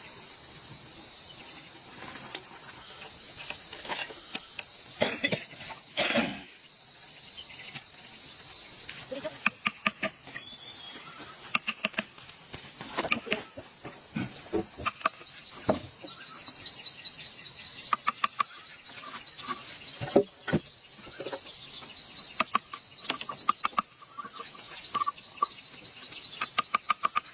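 A steady, high-pitched chorus of insects, crickets or cicadas, with scattered sharp clicks and knocks from handwork on top, some in quick runs of several ticks.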